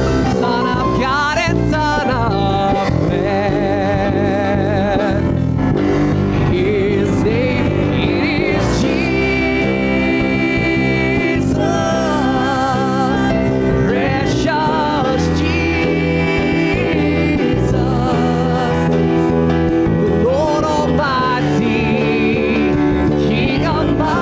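Live praise and worship band playing a gospel song, with singers holding long wavering notes over the band.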